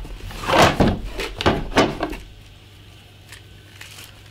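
Cardboard box being opened and handled: several sliding, scraping rustles in the first two seconds, then quieter with a couple of faint clicks as the long black mounting rails are lifted out.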